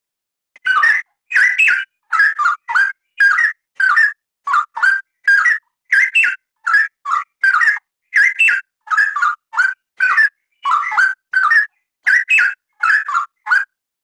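Straw-headed bulbul singing: a fast run of short, loud, warbled whistled phrases, about two a second, with clean gaps between them. It begins about half a second in and stops shortly before the end.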